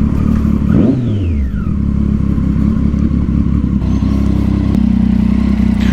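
Triumph Street Triple 675's inline three-cylinder engine running through a Yoshimura exhaust, with a brief rise and fall in revs about a second in, then running steadily at low revs.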